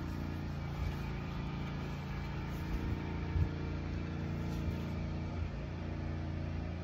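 A steady low engine hum, with a few faint knocks scattered through it.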